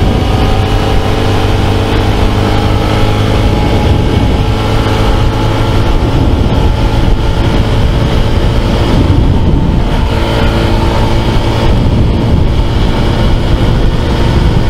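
Honda CT125 Trail's 125 cc single-cylinder engine running steadily under load as the bike rides at about 72 to 76 km/h, with heavy wind rush over the microphone.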